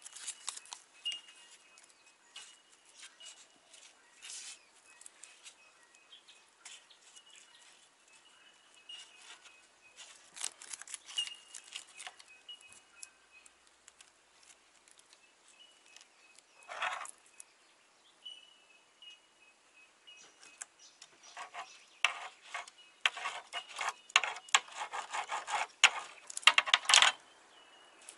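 Paper and latex-gloved hands rustling and crinkling as resin is worked into the holes of a fibreglass panel, with scattered small clicks and a dense run of crackling in the last several seconds. Faint high bird chirps come and go.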